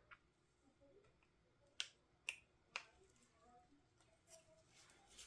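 Three sharp clicks about half a second apart, against near silence.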